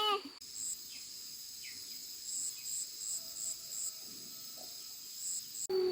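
Crickets and other insects chirring in a steady chorus of several high, even tones, one of them pulsing in short chirps a few times a second. It opens on the tail of a high, wavering call, and the chorus cuts off abruptly near the end.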